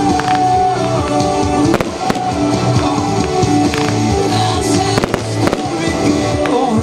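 Fireworks display: several sharp bangs of shells bursting over loud music with steady held notes.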